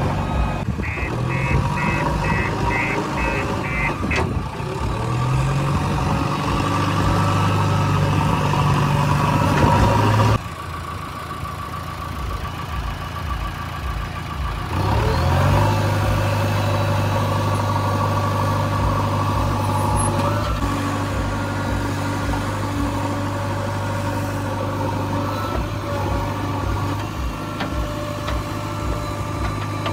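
JCB 3DX backhoe loader's diesel engine running and revving up several times as the machine works. Its reversing alarm beeps about twice a second during the first few seconds. The sound drops sharply about ten seconds in, then the engine revs up again and holds a steady higher pitch.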